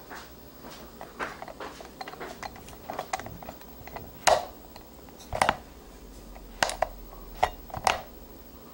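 Light metal clicks and knocks from a phoroptor's lens bank being slid back and forth on its newly fitted bracket and brass slider, run through its full range of motion. There are many faint ticks and about five sharper, louder knocks in the second half.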